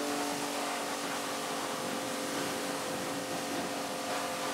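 Pressure washer running steadily, a motor-and-pump hum under the hiss of the water jet rinsing soap off a car's alloy wheel.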